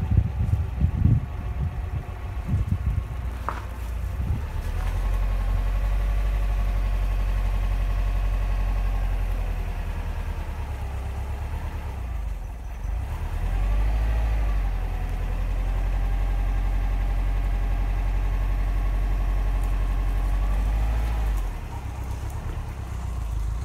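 Car engine idling and creeping forward at walking pace, a steady low hum heard from inside the car. It is uneven in the first few seconds, dips briefly about twelve seconds in, and settles lower near the end.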